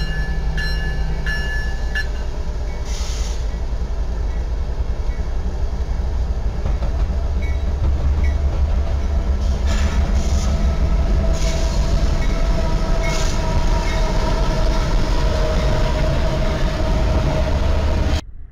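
Norfolk Southern diesel freight locomotives passing close with a double-stack container train: engines running with a heavy low rumble and wheels rolling on the rails, louder from about eight seconds in. A locomotive bell rings steadily for the first two seconds, and the sound cuts off suddenly near the end.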